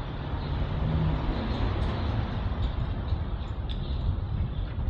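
City street traffic noise: a steady low rumble of vehicles.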